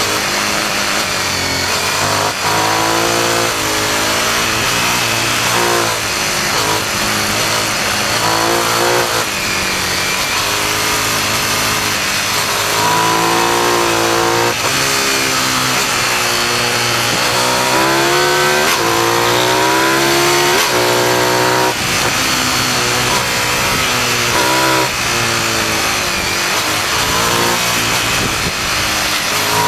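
Motorcycle engine heard from a camera mounted on the bike, pulling hard up through the revs and dropping back again and again as it accelerates out of corners and shifts gear, over steady wind and road noise.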